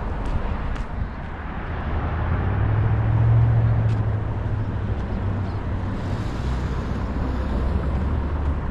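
Motor vehicle running with road noise: a low engine hum that swells about three seconds in, then settles.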